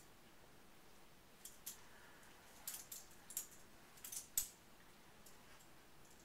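Dog rooting in bed blankets with its nose, a scatter of short, sharp clicks and rustles bunched in the middle.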